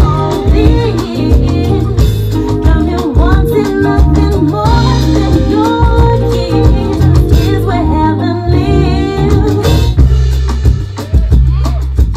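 Loud dance music with a heavy bass line and drums.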